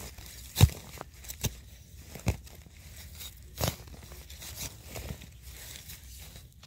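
Dry leaf litter and debris crackling and rustling as it is cleared by hand from the ground, with a string of sharp snaps, the loudest about half a second in.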